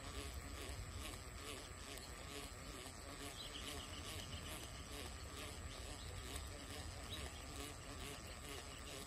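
Faint outdoor ambience: a steady high insect buzz with a low rumble underneath and soft ticks repeating a few times a second.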